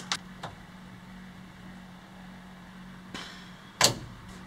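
Hands working with tools and wiring make a few sharp clicks and knocks: three small clicks at the start, a short scrape a little after three seconds, and one loud sharp click just before the end, over a steady low hum.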